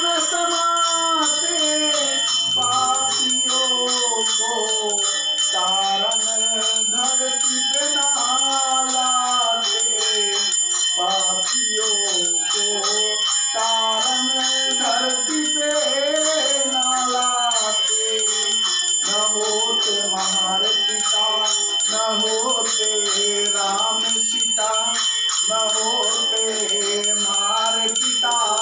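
A voice singing a devotional bhajan, its melody rising and falling in phrases, over a continuous high metallic bell-like ringing.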